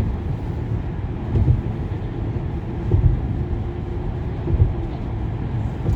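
Inside a moving car's cabin: a steady low rumble of tyres on the road and the engine, with a faint steady hum and a few low thumps.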